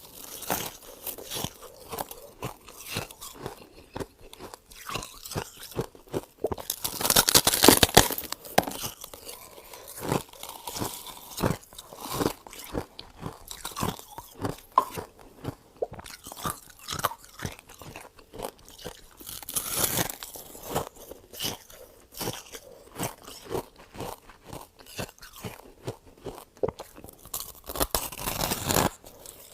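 Close-miked chewing of freezer frost: a run of short, crisp crunches, broken three times by a louder rasp about a second long, about a quarter of the way in, about two-thirds in, and near the end.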